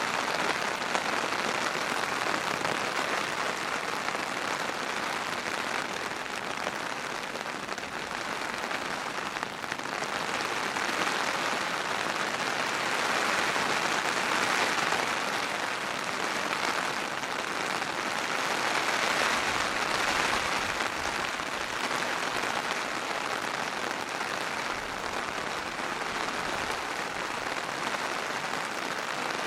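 Steady rain, a dense even hiss of falling drops that swells and eases a little every few seconds.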